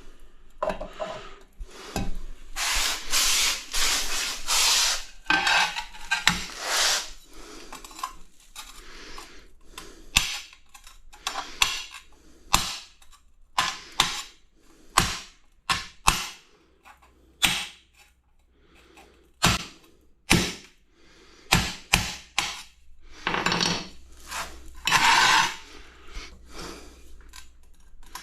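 A hand tool tapping and chipping at the edge of a hole in a ceramic tile: sharp irregular clicks and knocks, with a few stretches of scraping, including one a few seconds in and one near the end.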